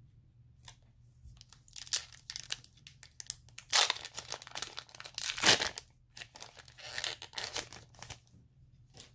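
Crinkling and tearing of a Pokémon booster pack's foil wrapper as it is opened, in irregular crackly bursts with the loudest rips about four and five and a half seconds in.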